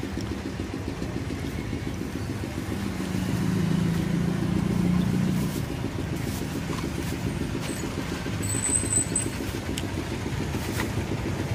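Road traffic engines running steadily on the street, with one vehicle getting louder as it passes about three to five seconds in.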